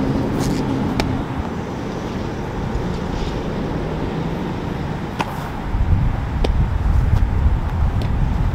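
Wind rumbling and buffeting on the microphone, gustier from about six seconds in. A few light, sharp knocks sound over it.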